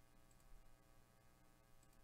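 Near silence: a low steady electrical hum with a couple of faint clicks.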